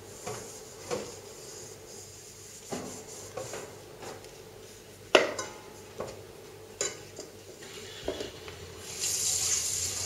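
Scattered clinks and knocks like dishes and cutlery being handled, about eight in all, the loudest about five seconds in. Near the end a steady hiss of running water starts, like a tap turned on.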